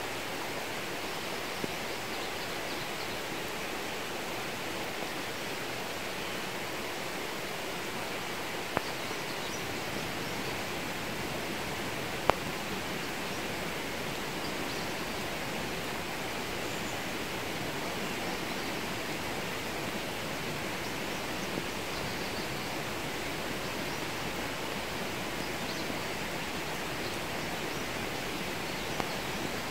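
Steady rain falling on the garden, an even hiss, with a few single sharp drips or taps now and then.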